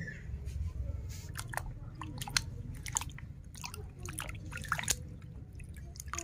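Water sloshing and splashing in a bucket as a hand scrubs a muddy plastic toy zebra, with irregular small clicks and knocks of the plastic figure.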